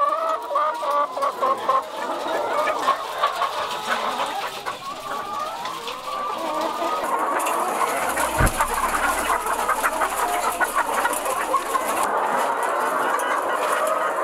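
Many caged chickens clucking. For a few seconds in the middle, a shovel scrapes chicken manure across a concrete floor, with one sharp knock.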